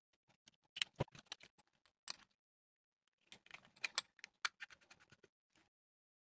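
Small screwdriver and plastic bulb holder being worked by hand: quick light clicks and scratches as the terminal screws are turned and the wire is fitted. They come in two spells, about a second in and again from about three seconds in.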